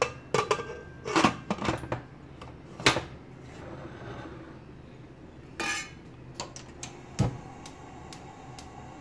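Stainless steel pressure cooker lid being fitted and closed: a string of sharp metal clinks and knocks, with a short clatter about halfway through and one last knock a little later. A faint steady hum follows near the end.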